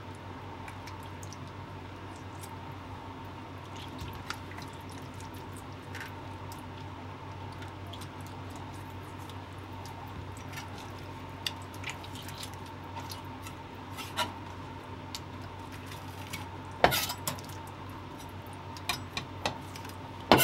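Scattered light clicks and small knocks of clam meat and utensils being handled on a plastic cutting board, over a steady background hum. There is a sharper knock about three-quarters of the way through and another right at the end.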